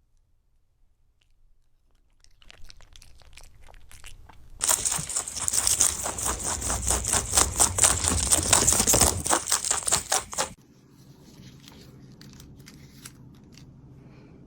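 A fast, scratchy tearing noise that starts suddenly about four and a half seconds in and stops abruptly some six seconds later. Faint clicks lead into it.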